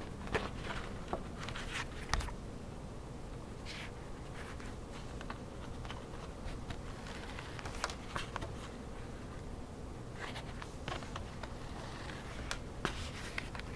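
Hand stitching through a leather knee patch and waxed cotton cloth: short, irregular scratchy rasps of the thread being drawn through, with a few light clicks of the needle.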